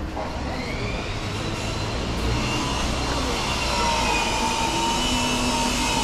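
A motor vehicle passing close by in street traffic: its running noise grows steadily louder, with a high whine over it.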